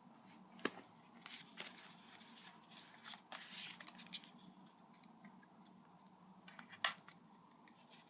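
Foil booster pack wrapper being opened and crinkled by hand, with the cards handled, in a run of crackling rustles that is loudest about three to four seconds in; a single sharp click near seven seconds.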